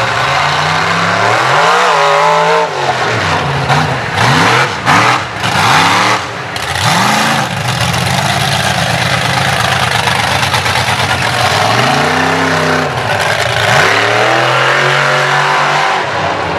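Mega mud truck's engine revving hard through a mud bog pit, its pitch swinging up and down over and over as the throttle is worked. The revving is loud throughout.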